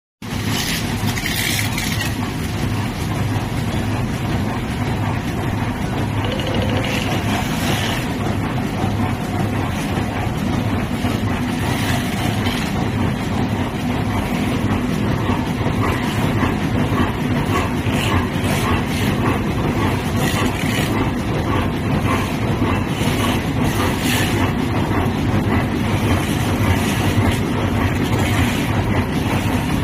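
Envelope bag making machine running: a steady mechanical drone with a faint regular ticking from its cycling parts and short bursts of hiss now and then.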